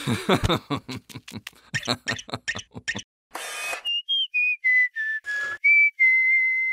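A quick, dense clatter of clicks for about three seconds, then a short hiss, then a whistled tune of short notes stepping downward that ends on one long held note.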